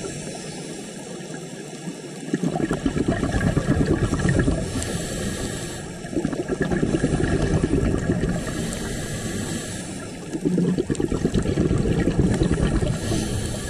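Scuba regulator breathing heard underwater: three bursts of exhaled bubbles rumbling past the camera, about four seconds apart, with a fainter hiss of inhalation between them.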